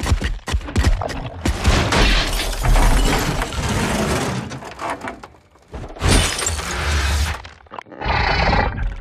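Film sound effects of cars being lifted and smashed: crunching metal and shattering glass, with a quick run of sharp impacts in the first couple of seconds. Near the end comes a short, wavering high screech.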